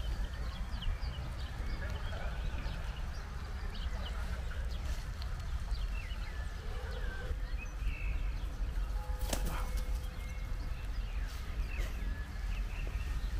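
Small songbirds chirping and singing over a steady low rumble, with one short knock about nine seconds in.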